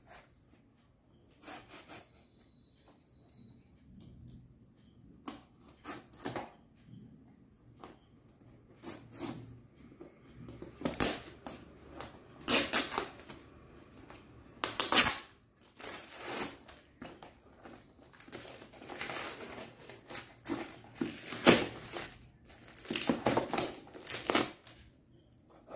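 A small cardboard parcel being opened: a knife slitting the packing tape, then cardboard and packing ripped and crinkled in irregular bursts that come thicker and louder in the second half.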